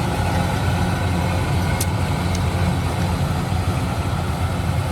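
A heavy engine running steadily, with a dense low rumble, and two faint high ticks about two seconds in.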